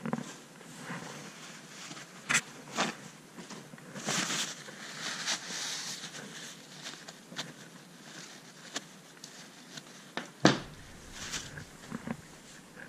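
Paper towel rustling as the enamel-stripped leads of a brushless motor are wiped clean of residual chemical, with scattered small clicks and knocks from handling. About ten seconds in, a single heavy thump as the motor is set down on the workbench.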